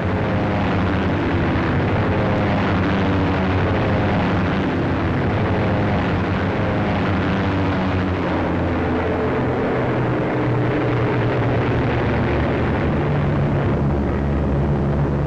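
Steady drone of propeller-driven bomber engines on an old wartime film soundtrack, with the pitch shifting about nine seconds in.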